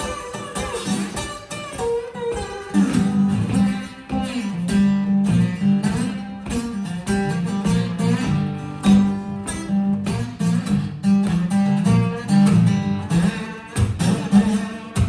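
Acoustic guitar playing an instrumental blues passage: plucked and strummed notes over a steady, repeating bass line.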